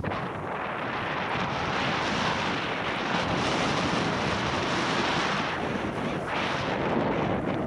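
Steady rush of wind over the camera microphone and skis hissing over snow during a downhill run, easing briefly about six seconds in.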